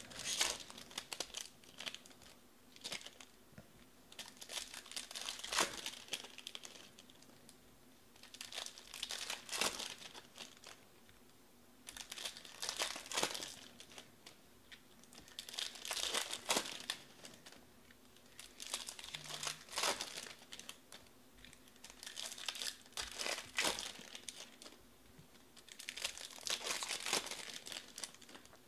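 Crimped wrappers of 2020 Bowman baseball card packs being torn open and crinkled by hand, with the cards inside handled and flipped through. The crinkling comes in short bursts every few seconds, one pack after another.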